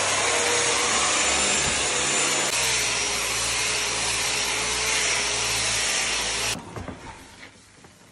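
Handheld orbital sander running steadily with a faint whine, its pad grinding the old finish off herringbone parquet. It stops about six and a half seconds in, followed by quieter rubbing by hand on the wood.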